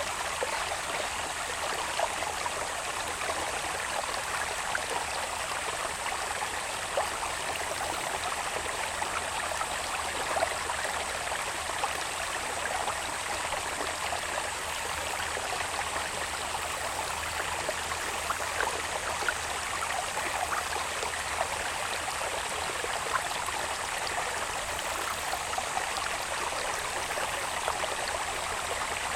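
Water babbling steadily along a small irrigation channel that runs down from the hills into the fields, with small splashes. A thin, steady high-pitched insect drone runs over it.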